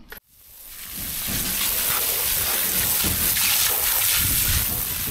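A water jet from a hose spraying onto rubber wellington boots and wet concrete, washing them off with a steady hissing splash. It fades in over the first second and starts fading out near the end.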